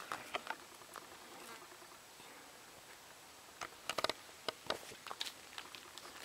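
Faint crackles and clicks of footsteps and movement in dry leaf litter, bunching into a quick run of crunches about halfway through.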